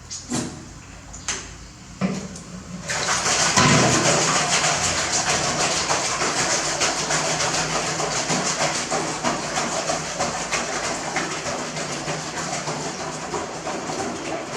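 A few light knocks, then about three seconds in running water comes on and pours steadily, as for a bath.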